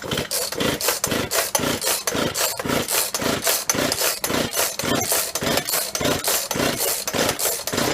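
Husqvarna 136 two-stroke chainsaw being pull-started over and over: the starter cord rasps and the engine turns over in quick, even strokes, about three a second, without running on.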